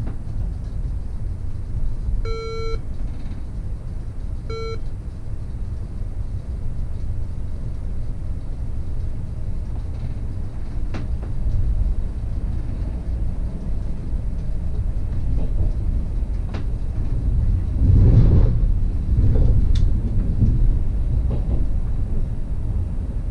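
Class 69 electric multiple unit running along the line, heard from the driver's cab as a steady low rumble. Two short electronic beeps sound a couple of seconds apart, a few seconds in. The rumble swells louder for a couple of seconds late on.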